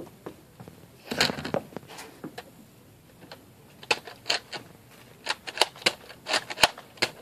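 Handling noise: a short clatter about a second in, then a run of irregular sharp clicks and taps.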